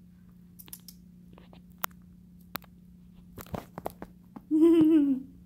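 Faint scattered taps and ticks, then, near the end, a cat's short wavering meow lasting under a second, the loudest sound here.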